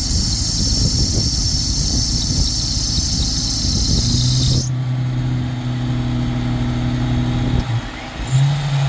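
Wind rumbling on the microphone with a steady high hiss that cuts off suddenly about four and a half seconds in. From about four seconds an electric winch motor hums at a steady pitch, stops briefly near the end and starts again.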